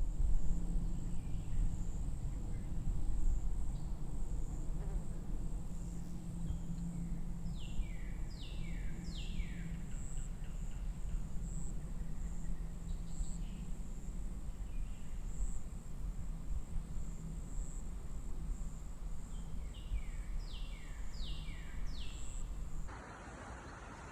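Wind rumbling on the microphone in a snowstorm, with a steady thin high whine. Two groups of three short falling chirps come through, one about eight seconds in and one about twenty seconds in.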